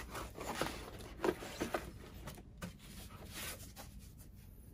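Cardboard packaging being opened and handled: a box slid out of its sleeve and its flaps opened, with rustling and scraping and a few sharp clicks a little over a second in.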